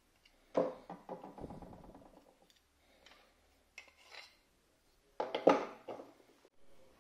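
Hard tools and plastic parts set down on a wooden tabletop: a clatter with a short rattle about half a second in, a few light plastic clicks near the middle, and a second, louder clatter about five seconds in. The pieces are a screwdriver and a plastic-handled welding electrode holder.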